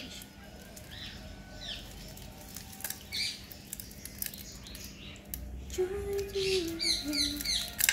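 Small birds chirping in short, high, falling notes, coming faster near the end, over scattered light crackles of soil and roots being pulled apart by hand.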